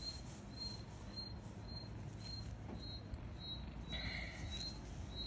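Soft rustling of a hand-knitted wool sock being handled as a hand is pushed inside it, a little louder about four seconds in. A faint high-pitched tone pulses about twice a second behind it.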